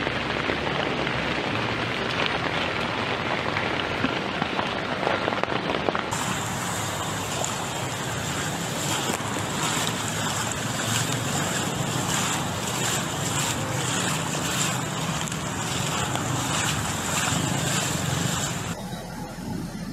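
Steady rushing noise of heavy rain and flowing floodwater on a flooded street, with wind buffeting the microphone. It changes abruptly about six seconds in, where a thin, high steady whine joins it, and again near the end.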